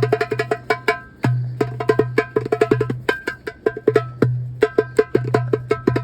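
Darbuka (goblet drum) played solo. Deep ringing dum strokes come a few times, with fast runs of sharp tek and ka strokes near the rim between them.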